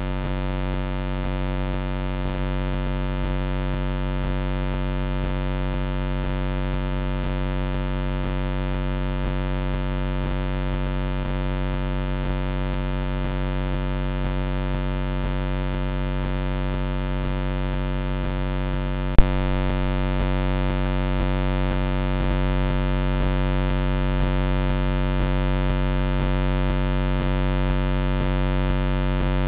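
Steady electrical buzz with many overtones from the trail camera's own recording electronics, with no sound from the animal. There is a single sharp click about two-thirds of the way through.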